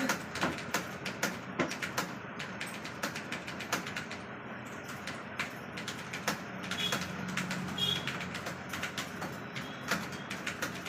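Typing on a computer keyboard: quick, irregular key clicks, a few keystrokes a second, with short pauses between runs.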